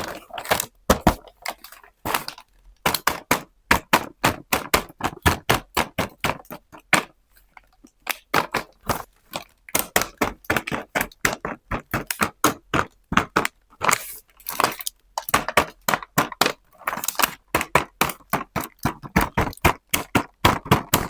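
Small plastic toy pieces and their packaging being handled and unwrapped: rapid, irregular clicks, crackles and taps, with a few short pauses.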